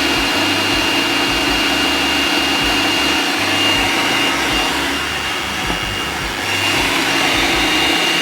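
Electric kitchen blender running continuously with a steady high motor whine, blending a basil, garlic, lemon and oil pesto dressing. It runs slightly quieter from about five to six and a half seconds in.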